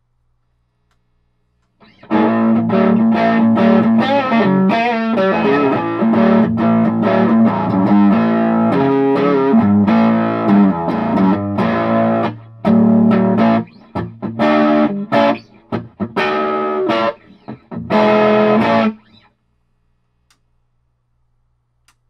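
Electric guitar played through a Reverend Kingsnake 2060 combo amp, demonstrating its repaired reverb. Strummed chords and riffs start about two seconds in and run for about ten seconds, then give way to short chord stabs with gaps, stopping a few seconds before the end. A low steady amp hum fills the silences.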